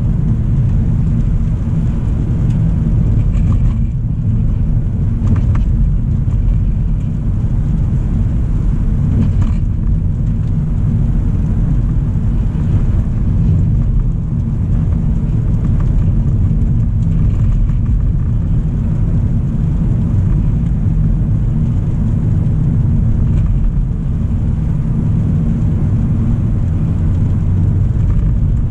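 2025 Hyundai Elantra SEL driving at steady speed: a continuous low road and drivetrain rumble with no change in pace.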